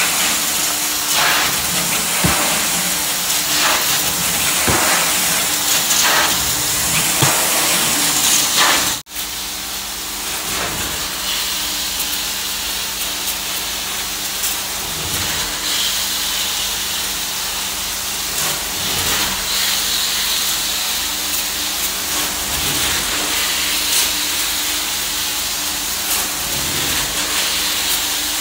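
Truck-mounted carpet extractor wand drawn over carpet: a loud, steady hiss of hot-water spray and vacuum suction, with a steady low hum under it. The sound drops out for an instant about nine seconds in.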